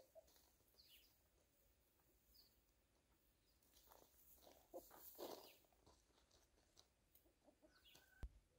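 Near silence, with faint scattered taps of chickens pecking and scratching on gravel, denser about four to five seconds in, and a few short faint bird chirps.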